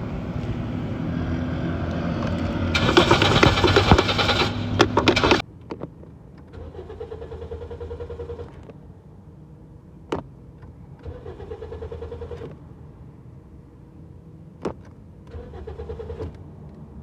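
Car engine being cranked over and over without catching: a hard start, the car won't start. A long loud stretch of cranking cuts off suddenly about five seconds in, then come three shorter cranking bursts of one to two seconds each, with a sharp click just before the second and third.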